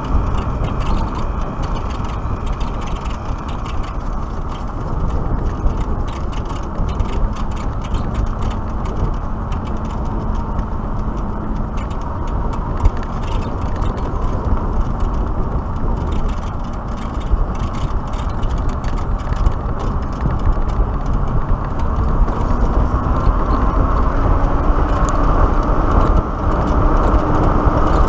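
Wind rushing over the microphone and tyre noise from a Black Tea Bonfire X electric motorcycle ridden at about 35 to 45 km/h, with no engine sound. A faint hum rises in pitch near the end as the bike speeds up.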